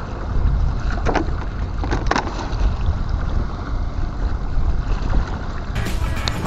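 Wind buffeting the microphone: a loud, steady low rumble, with a few short knocks about one and two seconds in.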